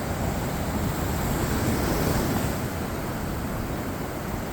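Gulf of Mexico surf washing onto the beach, steady with a slight swell about two seconds in, with wind buffeting the microphone.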